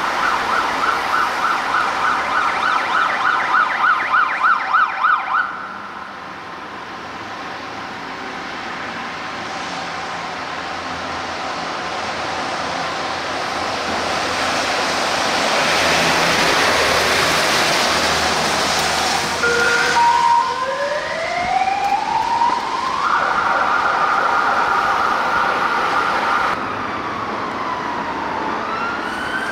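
UK fire engine siren in a fast yelp, about four cycles a second, then the fire engine's engine and tyres on a wet road, swelling as it passes with no siren. About twenty seconds in, a siren gives short stepped notes, then a rising wail that holds a steady high note until it cuts off suddenly. Near the end another siren begins to rise.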